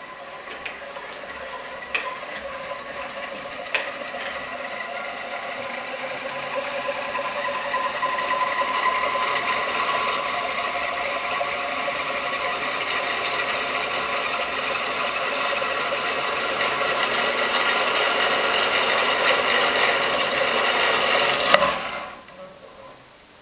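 Electric motor spinning a large Benham disc: a steady mechanical whir that grows louder as the speed is turned up, with a few sharp clicks in the first few seconds. Near the end a hand grabs the disc with a sharp knock and the whir dies away quickly as the stalled motor is shut off by the controller's overcurrent detection.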